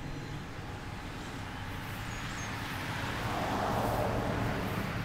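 A passing car's tyre and road noise, swelling to a peak about four seconds in and then fading, over a steady low rumble.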